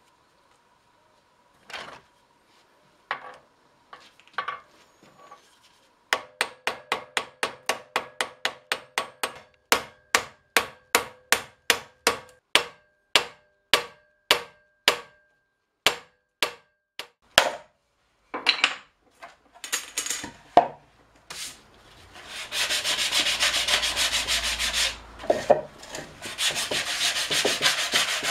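A hammer riveting a metal barrel hoop on a bench vise: about two sharp, faintly ringing blows a second for some ten seconds. After a pause, steady rubbing as the outside of a small cherry-wood barrel is sanded by hand.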